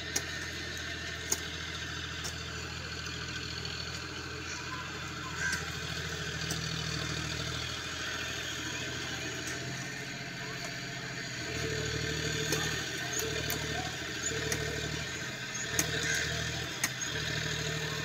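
An engine running with a low hum, steady at first and then pulsing on and off from about the middle, over a constant background hiss, with a few scattered clicks.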